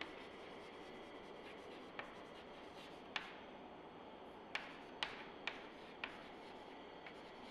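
Chalk writing on a chalkboard: faint scratching strokes, with short sharp taps of the chalk against the board about two seconds in, just after three seconds, and several more between four and a half and six seconds.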